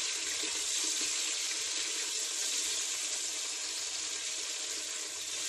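Chopped onion, tomato and green chillies frying in hot oil in a pressure cooker, a steady sizzle as they are stirred.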